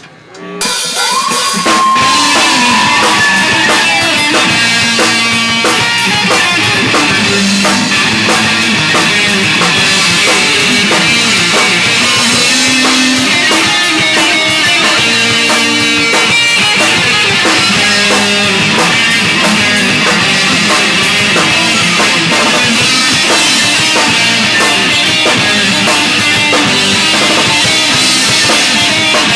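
Rock band playing loud and steady: drum kit, distorted electric guitars and bass, kicking in about a second in after a brief drop, with no singing.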